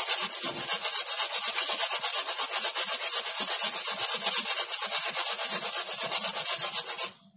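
Raw peeled potato being grated on the coarse side of a metal box grater: rapid, even rasping strokes of potato scraping over the grater's teeth, stopping abruptly near the end.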